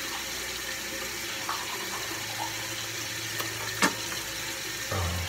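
Bathroom tap running steadily into the sink, with one sharp click about four seconds in.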